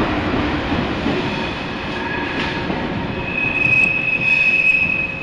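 TGV high-speed train running out past the platform, its rumble fading away, then a high, steady steel wheel squeal that sets in about three seconds in and is the loudest sound near the end.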